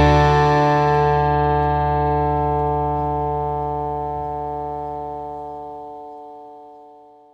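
Music: a single sustained chord rings on and slowly fades away, dying out near the end.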